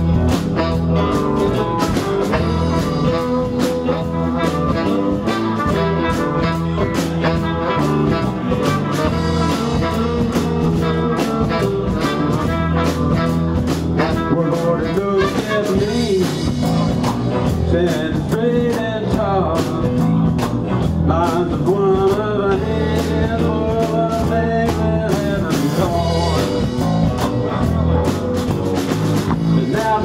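Live blues band playing an instrumental passage: electric guitar, bass and drums under a horn section of trumpet, trombone and saxophone, with a steady drum beat throughout.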